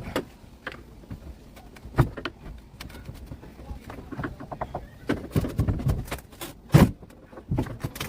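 Hand-tool work on a boat's old timber fittings: irregular scraping, knocking and clattering. There is a sharp knock about two seconds in and a louder one near the end, with a busy cluster of knocks between them.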